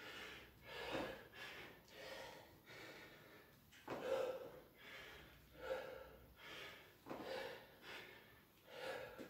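A man's faint, heavy breathing, short breaths in and out roughly once a second, from the effort of single-leg squats up from a chair.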